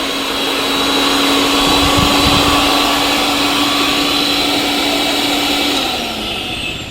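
Mixer grinder's motor running at a steady speed, a whirring hum over a rush of air, then winding down and fading near the end.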